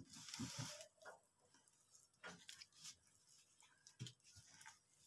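Faint squishing and rustling of a bare hand mixing grated vegetables, flour and egg into pakora batter in a plate, with a few soft brief sounds from the hand working the mixture.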